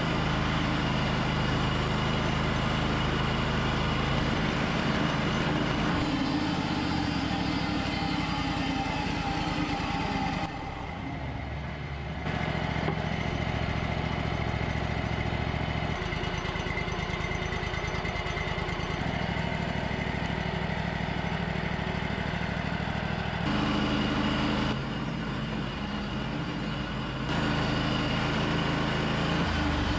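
A Wood-Mizer LT35 portable sawmill's engine running steadily, its sound changing abruptly several times.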